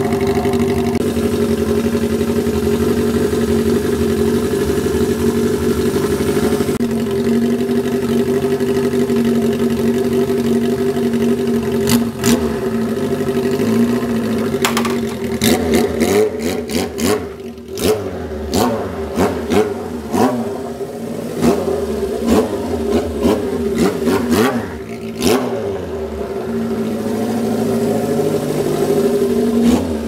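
Honda CB400Four's air-cooled inline-four engine running through a Yoshimura four-into-one collector with the silencer insert removed, so it is effectively straight-piped. It idles steadily, then from about twelve seconds in it is blipped sharply over and over, the revs jumping and falling back, before it settles back to idle near the end.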